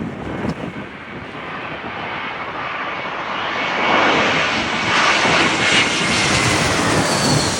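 Jet engines of an Airbus A320 airliner flying low past, growing louder to a peak over the second half and just starting to fade at the end, with a high whine that falls slightly in pitch as it passes. Gusts of wind buffet the microphone early on.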